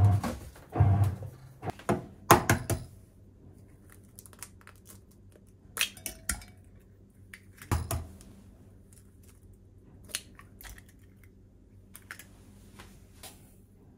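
A few loud knocks and clicks at the start, then eggs cracked and dropped into a glass measuring jug: a sharp crack about six seconds in and a heavier knock about two seconds later, with a few light clicks after.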